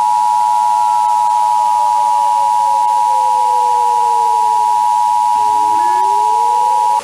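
Emergency Alert System attention signal: a loud, steady two-tone beep, two close pitches sounded together, cutting off just before the end. It announces an emergency alert message. Beneath it, a fainter civil defense siren slowly winds down in pitch and then winds back up.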